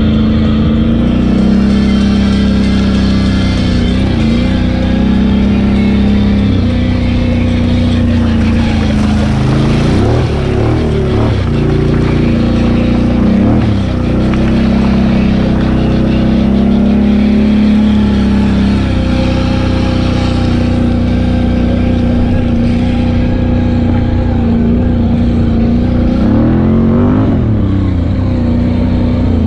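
ATV engine running under throttle on a dirt trail, heard from the rider's seat. Its pitch dips and climbs again a few times as the throttle is eased and opened, twice near the middle and once near the end.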